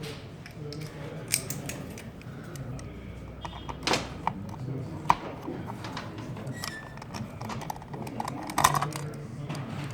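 Light metal clicks and clinks, a few seconds apart, of a screwdriver and small parts being handled as a small screw is taken out of an LCD display panel.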